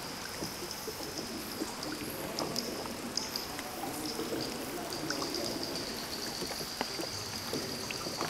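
Water trickling and flowing in an underground river, with scattered drips and small splashes. A steady high-pitched tone runs underneath.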